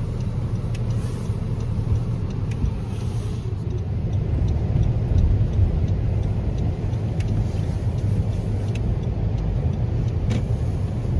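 Car cabin noise while driving: a steady low rumble of the engine and tyres on the road, heard from inside the moving car.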